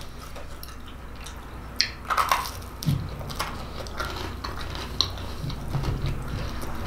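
Pull-apart cheese bread being torn and bitten, with a cluster of crisp crust crackles about two seconds in, then chewing.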